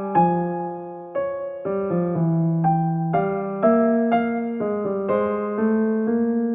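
Soft background music: gentle electric piano playing a slow melody over held notes.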